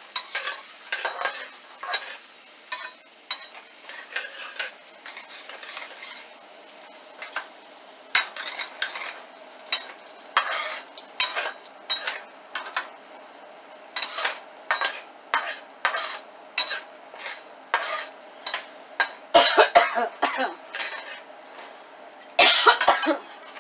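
Metal spatula scraping and tapping around a frying pan, stirring chopped ginger frying in oil, with a faint sizzle underneath. The strokes come irregularly, one or two a second, and grow louder and quicker in two bursts near the end.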